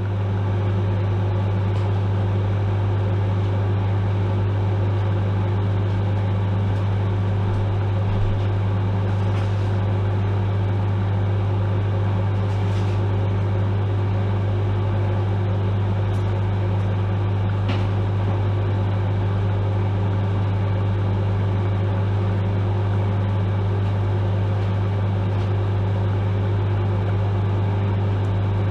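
Microwave oven running mid-cook: a steady electrical hum with a strong low buzz, and a few faint ticks now and then.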